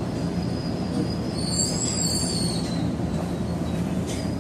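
Tobu 70000 series electric train heard from the cab, running with a steady low rumble and hum from its motors and running gear. A shrill, high wheel squeal rises over it about a second and a half in and fades after about a second, typical of wheels squealing on a curve.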